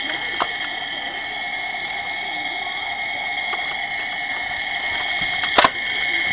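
Battery-operated Thunderbird 2 toy playing its electronic engine sound effect, a steady drone, with one sharp click about five and a half seconds in.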